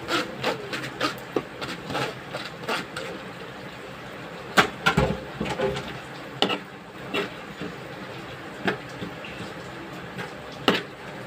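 Irregular clinks and knocks of kitchen utensils against cookware while cooking, about fifteen separate hits with the loudest about halfway through and near the end.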